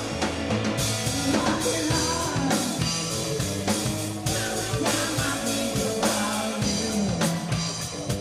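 Band music with guitar, a drum kit keeping a steady beat, and singing.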